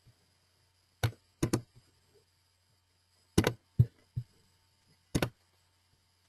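About eight sharp knocks close to the microphone, mostly in quick pairs, coming in three or four clusters over a faint steady low hum.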